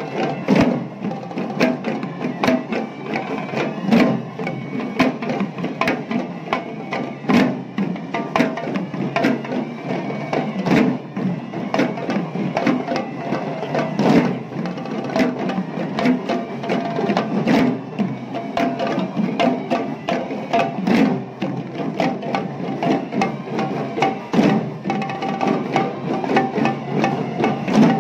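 A troupe of Kandyan drummers playing double-headed barrel drums (geta bera) in a fast, continuous rhythm of sharp strokes.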